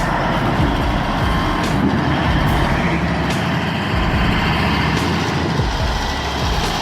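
A heavy vehicle's diesel engine running steadily, with a dense mechanical rumble and a few sharp clicks or knocks.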